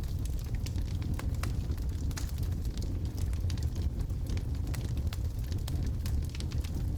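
Wood logs burning in a fireplace: a steady low rumble of flames with many small, irregular crackles and pops.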